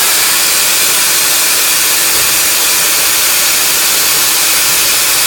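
Holmes shoe pipe grinder running with the pipe spinning and the lance driving forward into it: a loud, steady hissing whir with a steady hum underneath.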